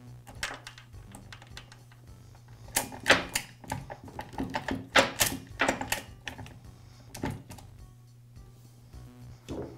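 Husqvarna saw chain clicking and clattering against the guide bar and drive sprocket as it is fitted by hand, in a run of sharp metallic clicks, most of them about three to seven seconds in, over quiet background music.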